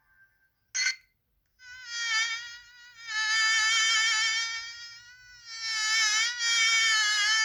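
Samsung SGH-X800 mobile phone ringtone: a short electronic blip, then a buzzy, insect-like synthesized tone that holds its pitch with a slight waver. The tone dips and breaks briefly about two-thirds of the way in, then carries on.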